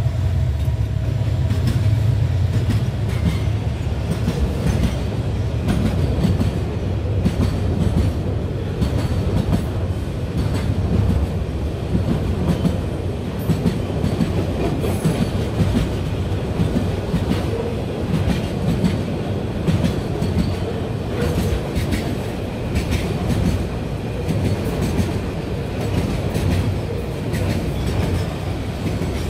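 Container freight train passing close by: a heavy steady rumble with the wagons' wheels clattering over the rail joints. The diesel locomotive's engine drone fades away in the first second or two as it goes past.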